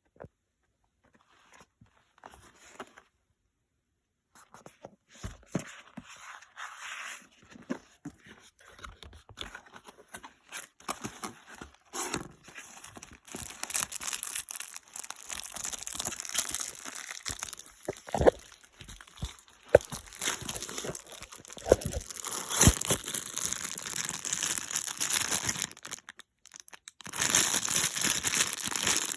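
Packaging being handled, torn open and crinkled by hand, with scattered clicks and knocks. It starts nearly silent and grows into steady crinkling from about halfway through, pausing briefly near the end.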